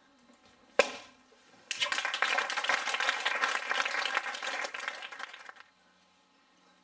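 A single sharp crack about a second in, a wooden board breaking under a kick, followed by audience applause for about four seconds.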